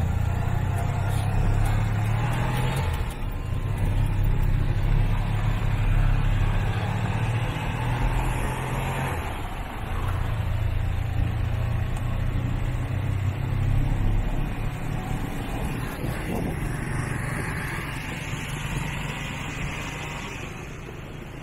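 Motorcycle engine of a tuk-tuk running under way, heard from the passenger seat with road noise. Its low drum eases off and picks up again a few times as the driver works the throttle.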